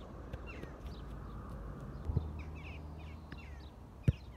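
A football is kicked hard once near the end, a sharp thump, with a fainter thud about two seconds in. Birds chirp throughout over a low wind rumble on the microphone.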